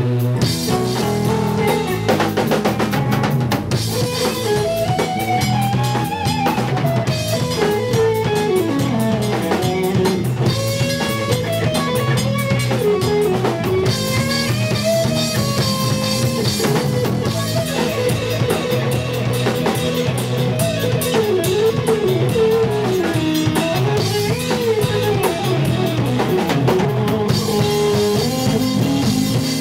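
Live instrumental jazz-fusion band playing: an electric lead guitar plays a sliding, bending melody over a busy drum kit and a heavy low end.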